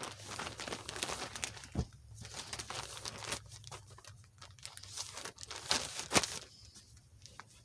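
White plastic poly mailer bag crinkling and rustling as it is handled and a garment is pulled out of it, in irregular crackles that thin out in the second half.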